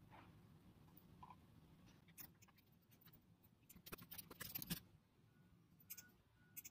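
Faint computer keyboard keystrokes and mouse clicks, with a quick run of typing about four seconds in and a couple of single clicks near the end.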